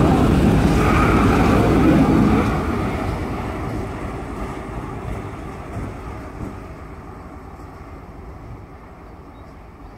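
GE C36-7i diesel-electric locomotive with a 16-cylinder diesel engine, passing close by and then moving away. It is loud for the first couple of seconds, then fades steadily as it pulls away.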